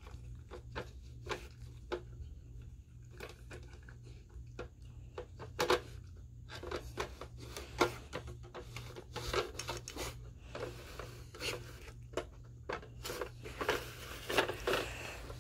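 Irregular clicks, knocks and scrapes from the pieces of a dog puzzle box as a dog works at it, busier in the second half. A steady low hum runs underneath.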